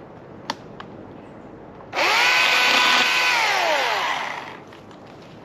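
Husqvarna gas chainsaw revved hard for about a second and a half with its new chain, then the throttle is released and the engine pitch slides down as it winds back off.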